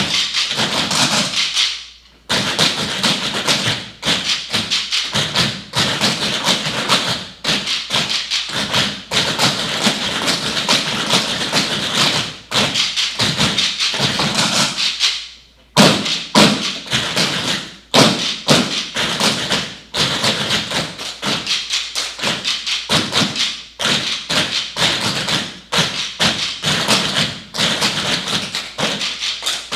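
A group of tap dancers' tap shoes striking a wooden floor in unison, fast rhythmic runs of taps and stamps. The rhythm stops briefly about two seconds in and again about halfway through, coming back with a loud stamp.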